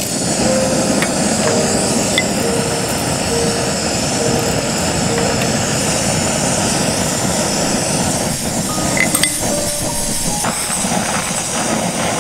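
Steady rushing outdoor noise under soft background music notes, with a few light clicks about three quarters of the way through.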